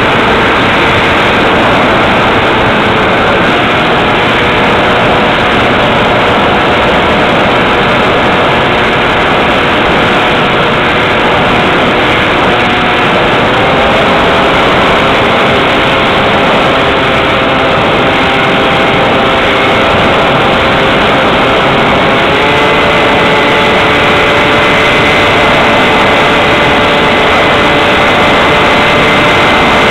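Electric motor and propeller of a Multiplex Xeno flying wing running under constant wind rush, recorded by the onboard camera. The whine steps up in pitch about halfway through and again later as the throttle is raised.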